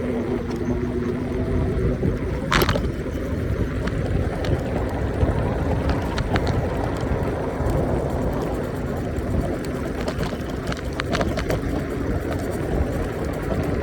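Steady road and wind rumble from riding an iENYRID M4 Pro S+ 800 W electric scooter, with a faint steady motor whine in the first few seconds. A sharp knock comes about two and a half seconds in, with a few lighter ticks later.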